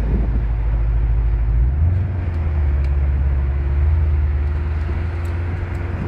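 Porsche Panamera 4S engine and exhaust running at low revs, a deep steady rumble that steps up in pitch about two seconds in, recorded through a phone microphone.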